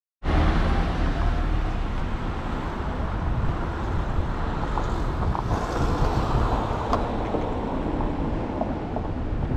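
Car driving slowly through town streets: a steady low rumble of engine and road noise that starts abruptly.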